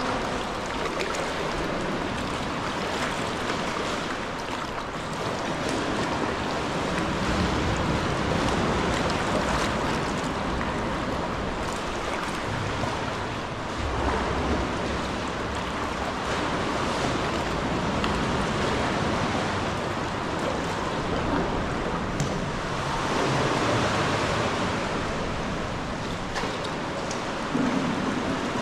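Sea swell washing and sloshing against the rock walls inside a sea cave, rising and falling in a few slow surges.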